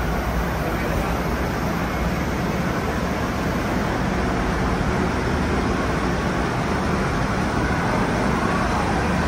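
Passenger train rolling along the platform: a steady rumble of its wheels and running gear.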